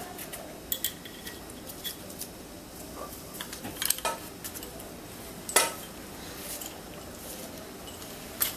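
Scattered metallic clinks and light knocks of steel engine parts being handled as the flywheel halves of a Royal Enfield Bullet 350 engine are bolted together, the loudest knock about five and a half seconds in.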